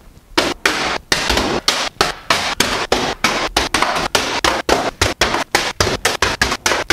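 Rapid run of sharp knocks and clatters, about five a second: a plastic water bottle hitting the top of a fridge and the kitchen cabinets again and again.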